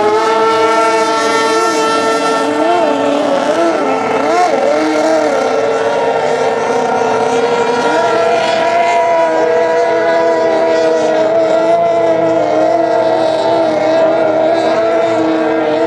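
Racing outboard engines of 750cc modified runabout boats running flat out as they race past. The engine pitch wavers up and down several times in the first few seconds, then holds a steadier, higher tone from about halfway.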